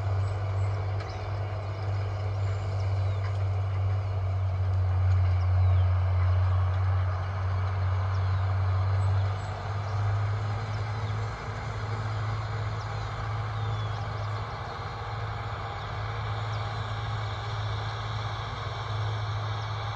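Diesel engine of a Case IH 9130 tractor working a field, a steady low drone that eases slightly about nine seconds in, with short bird chirps above it.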